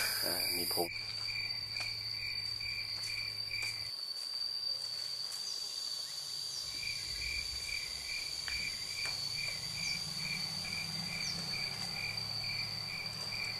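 Insects calling: a steady high-pitched trill with a separate regular chirp two or three times a second, which drops out for a few seconds in the middle and then resumes.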